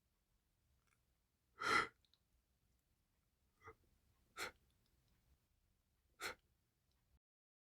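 Four short breathy bursts from a person's nose and mouth. The first, about two seconds in, is the loudest; three quieter ones follow over the next five seconds.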